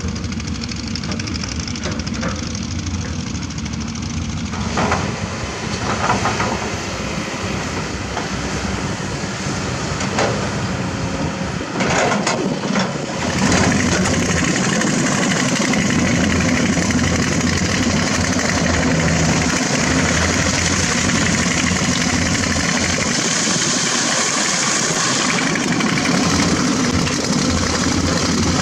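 Hydraulic excavator diesel engines running under working load, with a few knocks from the bucket and stones. The engine noise gets louder and harsher about halfway through.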